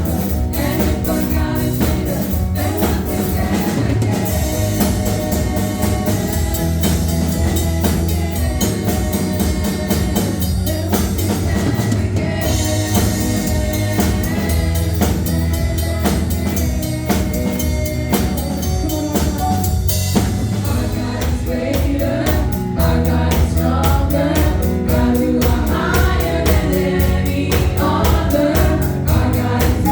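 Gospel music with a choir or congregation singing over a band with drum kit, at a steady beat.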